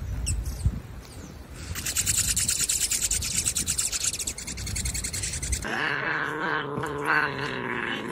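Hummingbirds crowding a hand-held feeder: a few high chirps, then a fast, even run of sharp high ticks for about four seconds. Near the end the sound changes to a sphynx cat's drawn-out, wavering yowl.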